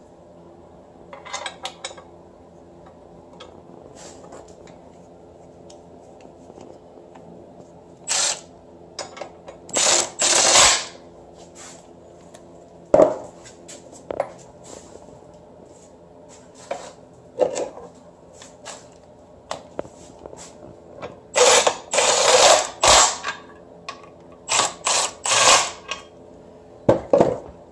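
Cordless drill-driver running bolts in, in short whirring bursts repeated several times, with small metallic clicks of parts being handled between them.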